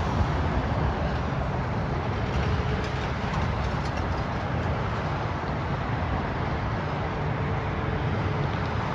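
Steady traffic noise with a low engine hum and no distinct events.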